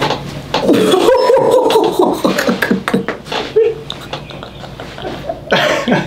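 Chiropractic neck adjustment: quick cracking pops in the first second, followed by the patient's gliding vocal exclamations and laughter.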